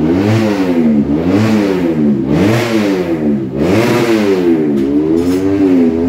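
Motorcycle engine being revved over and over, its pitch rising and falling about once a second as the throttle is blipped.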